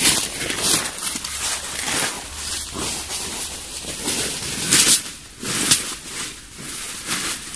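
Leaves and branches rustling and crackling in irregular bursts close to the microphone, with two louder bursts about five seconds in.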